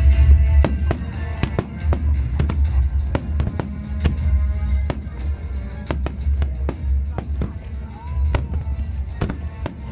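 Aerial fireworks bursting in quick succession, two or three sharp bangs a second, over loud music with a heavy bass.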